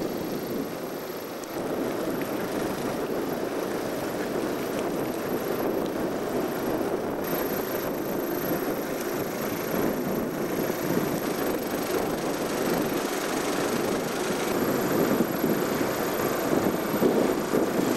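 Wind buffeting a camcorder microphone: a steady rushing rumble that grows slightly louder near the end.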